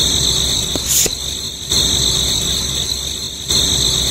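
Small electric motor of a miniature homemade chaff cutter running with a steady high whine over a low hum, with a short scrape about a second in.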